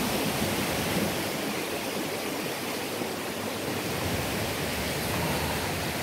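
Mountain stream running over a rocky bed: a steady rush of water.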